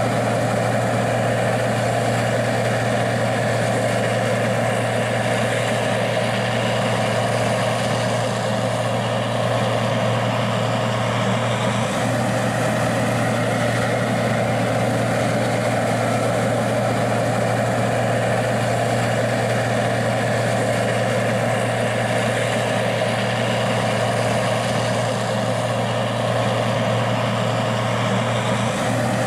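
Gleaner R60 combine's diesel engine running at a steady, unchanging speed, with a constant low hum under it.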